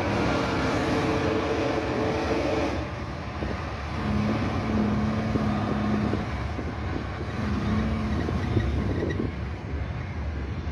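Caterpillar C15 diesel engine of a heavy Kenworth W900L truck running, a continuous rumble with a low steady tone that comes and goes.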